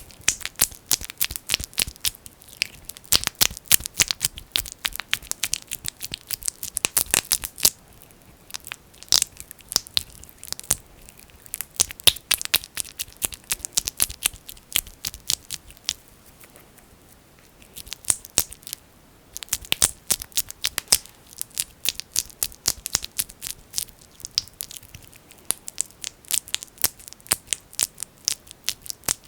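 Fingers squishing and pulling thick Vaseline petroleum jelly close to the microphone: dense sticky crackling clicks, broken by two brief pauses.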